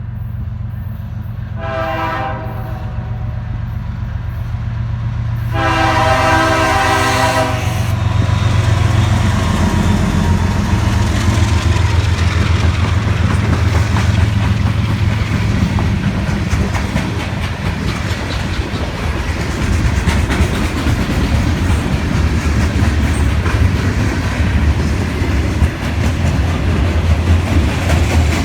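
Freight train's diesel locomotive sounding its air horn, a short blast about two seconds in and a longer one around six seconds, then the engine running loud as the train passes with wheels clacking over the rail joints.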